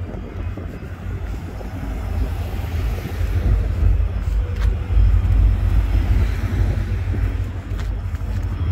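Low rumble of a Norfolk Southern freight train's diesel locomotives passing over a street grade crossing, mixed with cars driving by on the road. The rumble builds to its loudest about halfway through.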